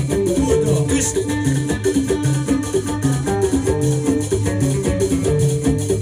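Live Moroccan folk band playing an instrumental passage: a loutar and a banjo pluck a quick repeating melody over a steady drum and hand-percussion beat.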